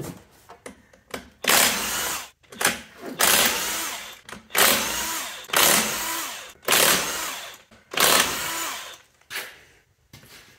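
Cordless impact wrench run in about seven short bursts, roughly one a second, undoing the 17 mm flywheel bolts on a Toyota 4A-C engine. The last burst near the end is quieter.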